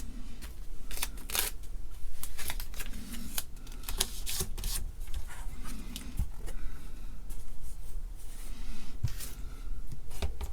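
Irregular small clicks, taps and rustles of hands handling a circuit board and its capacitors on a workbench.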